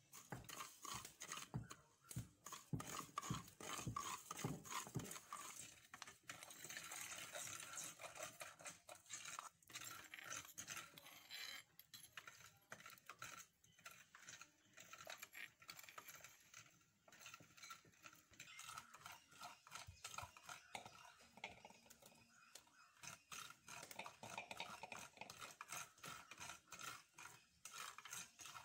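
Faint scraping, tapping and clinking of wooden and coconut-shell spoons in clay cooking pots, with a run of low knocks in the first few seconds.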